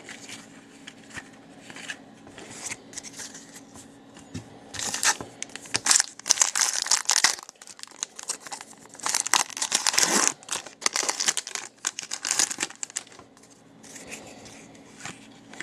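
A foil hockey-card pack wrapper being torn open and crinkled by hand. Soft rustling for the first few seconds gives way to several loud bursts of tearing and crumpling through the middle, then quieter handling near the end.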